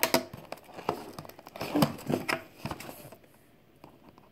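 A small cardboard toy box being handled and worked open: a run of short scrapes, taps and crinkles for about three seconds, then quiet.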